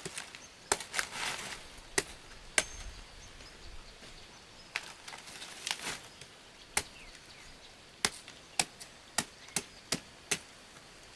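A blade chopping in about a dozen sharp, irregular strokes, coming faster near the end.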